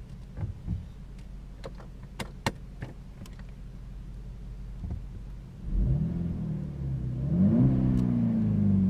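Volkswagen Polo GTI's turbocharged four-cylinder petrol engine heard from inside the cabin, idling with a few sharp clicks, then blipped once about six seconds in and revved up to about 4000 rpm in neutral near the end.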